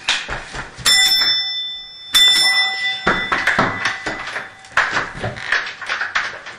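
Doorbell ringing twice, about a second and a half apart, each a bright metallic ding that dies away, amid scattered knocks and clatter.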